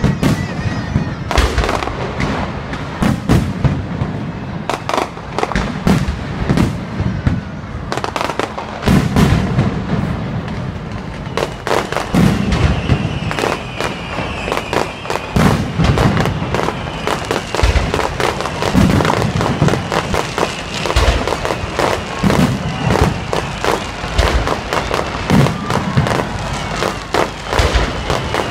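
Aerial fireworks bursting in a continuous barrage: sharp bangs and crackling, with deeper booms every second or two.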